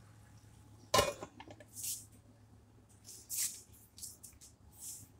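Kitchen cookware handling at a stove: one sharp clank about a second in, then a few short hissy scrapes and rustles, over a low steady hum.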